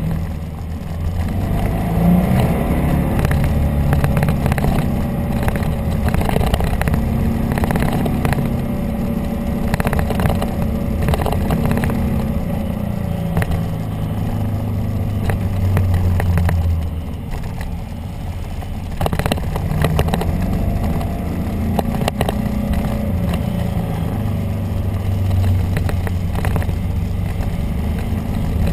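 Motorcycle engine heard from a camera mounted on the bike, its pitch rising and falling with the throttle through a run of corners, with wind noise on the microphone.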